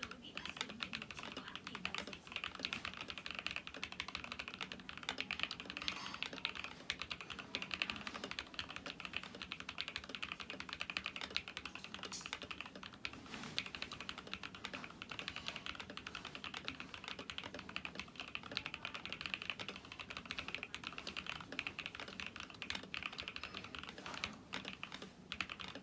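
Continuous typing on a Candy40 LE custom 40% mechanical keyboard fitted with Jwick yellow linear switches: a dense, steady stream of keystrokes.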